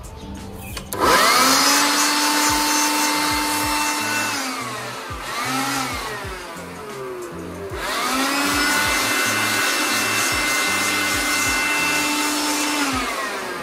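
Bosch handheld electric air blower switched on, its motor whining up to speed and running steadily for about three seconds before winding down. After a brief blip it runs again for about five seconds and winds down near the end, blowing dust out of an ASIC miner's fan panel.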